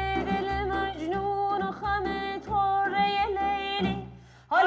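Music: a high voice singing a melody full of quick bends and trills, over a low bass that sounds in phrases. It breaks off briefly near the end, then starts again.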